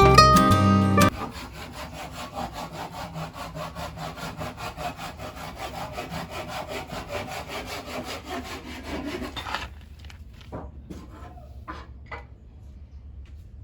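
Plucked-string music ends about a second in. Then a wooden board is hand-sanded with rhythmic back-and-forth strokes, about three a second, for some eight seconds. A few light knocks follow.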